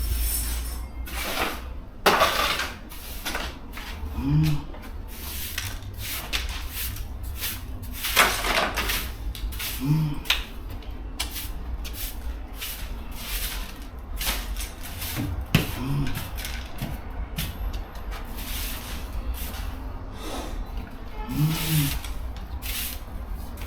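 Irregular knocks, clatter and rustling of objects being handled. A short, low animal call sounds three times.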